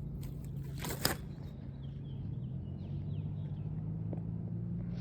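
A steady low hum runs through, with two sharp clicks about a second in and faint short chirps after.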